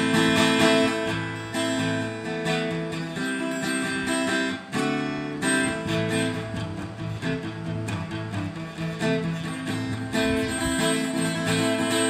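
Yamaha acoustic guitar strummed in chords, an instrumental interlude with no singing.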